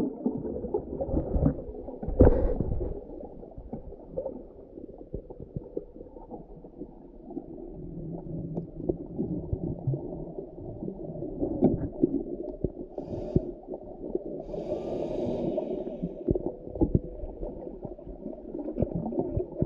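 Muffled underwater sound of moving water: a low rumbling and gurgling wash with scattered small clicks and knocks, and one heavier thump about two seconds in.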